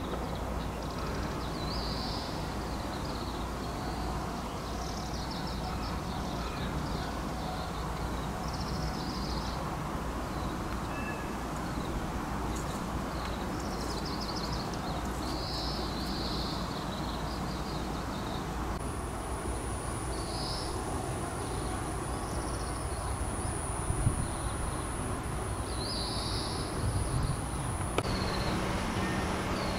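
Outdoor ambience: short high chirping calls, typical of small birds, repeat every second or two over a steady low rumble. A thin steady high tone comes in about two-thirds of the way through, with a couple of soft knocks near the end.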